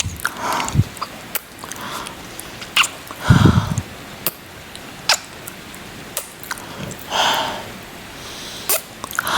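Close-miked ASMR kissing sounds: a string of wet lip smacks and kisses with breathy exhales between them, the loudest breath about a third of the way in. A steady hiss of rain runs underneath.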